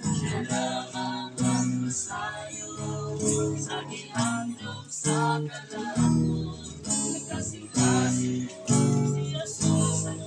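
Acoustic guitar strummed in a steady rhythm of about one strong strum a second, with a voice singing along.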